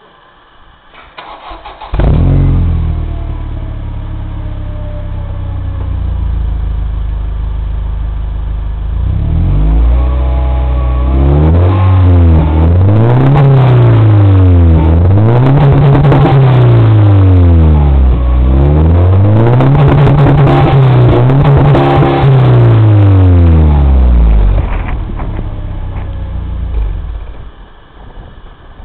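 Mercedes-Benz CLK 230 Kompressor's supercharged four-cylinder engine sounding through a WM sport aftermarket exhaust. It is cranked and catches about two seconds in with a loud burst, then settles to a fast idle whose pitch sags slowly. It is revved up and down about four times, drops back to idle, and is switched off near the end.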